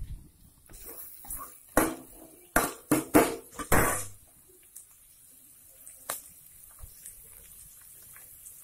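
A steel ladle knocking and clanking against a stainless steel kadai, with several sharp metal strikes between about two and four seconds in and one faint click a couple of seconds later.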